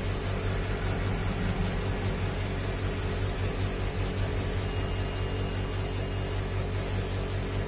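Steady low electrical hum under an even hiss, with a faint thin high tone for about a second and a half past the middle.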